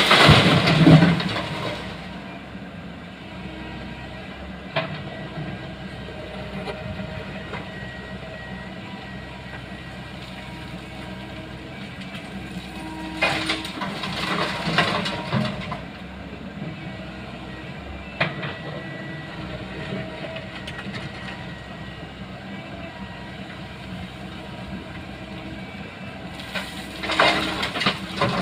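Komatsu PC135 excavator's diesel engine running steadily through its loading cycle. Three times, about every 14 seconds, a loud rattling rush of crushed stone pours out of the bucket.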